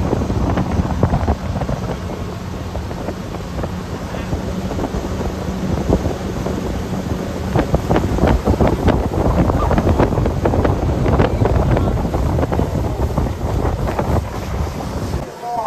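Motorboat running at speed while towing a tube, heavy wind buffeting the microphone over the engine and the rush of the wake. A steady engine hum carries through the first half; the sound cuts off suddenly just before the end.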